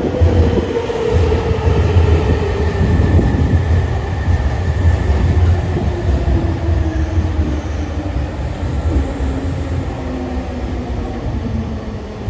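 Electric train pulling in on the adjacent track and braking. Its traction-motor whine falls steadily in pitch over a strong low rumble of the wheels.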